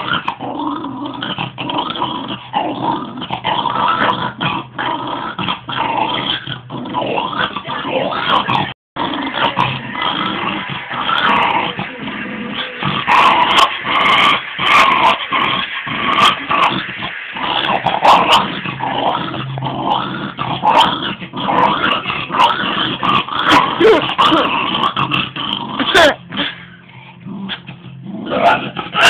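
A dog growling steadily over a ball it is keeping from its owner. The sound cuts out for a moment about nine seconds in and is quieter for a short spell near the end.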